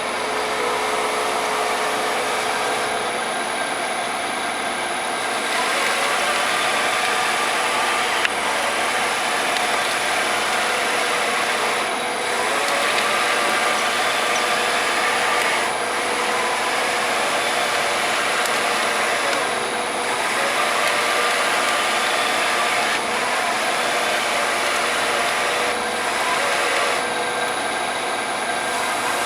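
Fryer MB-14 CNC bed mill running under power, its spindle turning with a steady whir and whine. The tone changes every few seconds.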